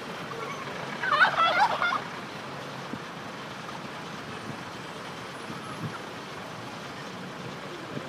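Domestic turkey tom gobbling once, a rapid rattling burst lasting about a second, starting about a second in.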